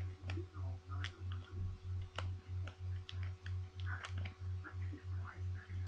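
Trading cards being handled and slid into the plastic pockets of a collector's binder: scattered light clicks and rustles. Underneath, a low hum pulses steadily about five times a second.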